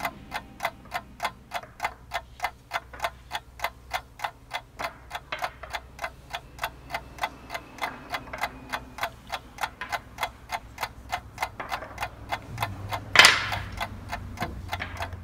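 Even, clock-like ticking at about four ticks a second, with one louder, sharper hit about thirteen seconds in.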